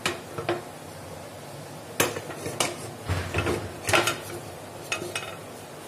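Metal cake tin knocking and scraping against the inside of a pressure cooker as it is lifted out with a cloth: a handful of sharp metal clanks, the loudest about two and four seconds in.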